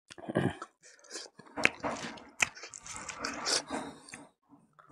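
Close-miked chewing and biting of bone-in buffalo meat, wet mouth sounds with two sharp crunching clicks near the middle.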